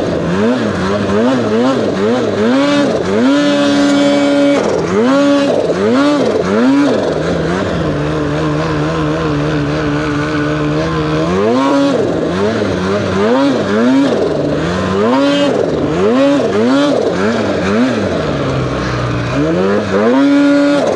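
Polaris Khaos Boost snowmobile's turbocharged two-stroke engine, fitted with an SLP competition can, revved up and down in quick throttle blips over and over as it works through deep snow, with a few longer stretches held at a steady speed.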